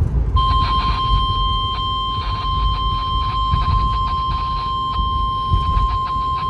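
NOAA Weather Radio 1050 Hz warning alert tone: one steady high beep that starts about half a second in and holds, over radio static and low rumble. It announces a new warning, here a severe thunderstorm warning.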